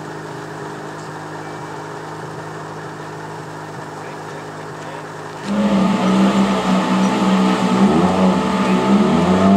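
Rally car engine: a steady engine drone for about five seconds, then an abrupt jump to a loud, high-revving rally car whose pitch rises and dips repeatedly through gear changes and throttle lifts.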